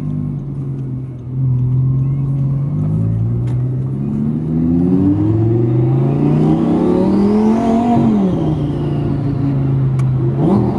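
Twin-turbo V10 of a first-generation Audi R8 accelerating, heard from inside the cabin. The engine note climbs and drops back at two upshifts of the single-clutch R-tronic gearbox, and peaks about eight seconds in with a high turbo whine rising and falling alongside. It then settles to a steady cruise, with a short rev blip near the end.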